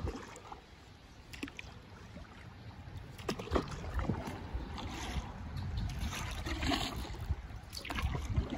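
Kayak moving down a shallow river: water trickling and splashing around the hull, with scattered short splashes and knocks over a low rumble that grows louder after the first couple of seconds.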